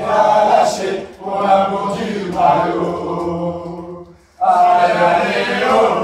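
A group of voices chanting a football chant together, breaking off briefly about four seconds in.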